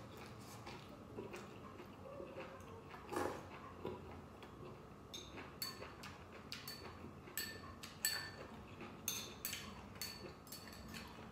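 Eating utensils clicking and clinking against a bowl in quick irregular taps, most of them in the second half, with a duller knock about three seconds in.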